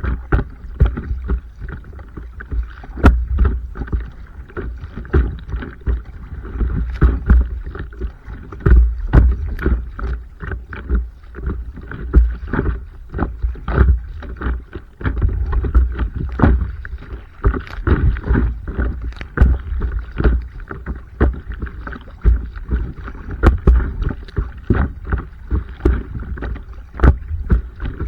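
Stand-up paddleboard moving through the water: paddle strokes and water splashing and slapping against the board several times a second, over a constant heavy low rumble like wind on the microphone.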